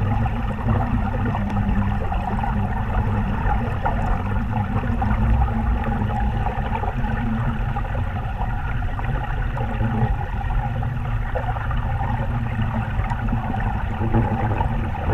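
Steady, muffled rush of river current, heard through a camera submerged on the riverbed.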